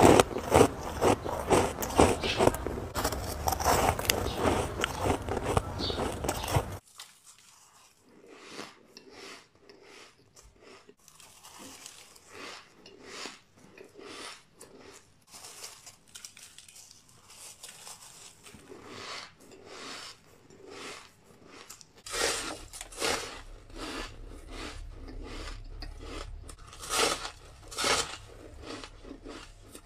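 Bites and chewing of soft, powdery white snowflake ice: a run of close, crisp crunches. The crunching drops much quieter about a quarter of the way through and grows louder again about three quarters of the way through.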